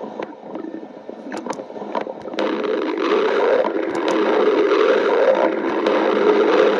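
Stomach growling: quiet gurgles with a few sharp clicks, then about two and a half seconds in a loud, continuous rumble sets in and carries on.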